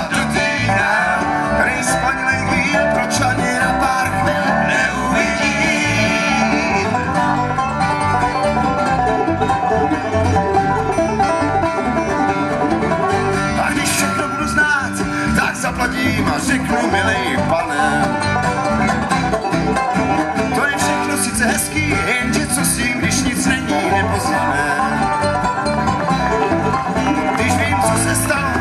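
Live bluegrass band playing an instrumental stretch: banjo and mandolin picking over guitar.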